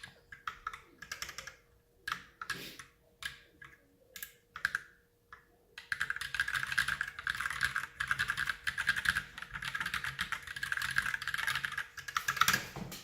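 Typing on an Ultimate Hacking Keyboard fitted with lubed Holy Panda tactile switches. Scattered short bursts of keystrokes come first; about six seconds in they give way to fast, continuous typing that stops just before the end.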